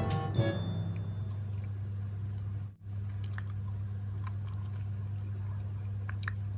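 Close-up chewing of a soft chicken floss bun, with scattered small wet mouth clicks over a steady low hum. Background music fades out in the first half-second, and there is a brief dropout about three seconds in.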